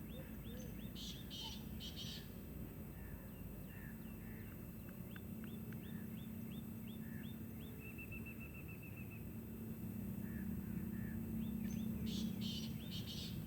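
Birds chirping: a run of short, high, downward-sliding chirps, a quick trill about eight seconds in, and harsh, scratchy calls near the start and again near the end.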